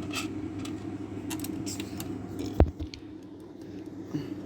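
Small metallic clicks and scrapes of a screwdriver and tiny screw being worked into an SSD mount inside a computer case, with one louder knock a little past halfway, over a steady low hum.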